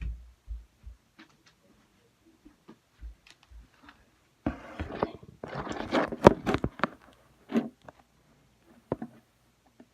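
Handling noise: a few low bumps, then about two seconds of rustling, scraping and sharp clicks midway, with a couple of lone clicks near the end.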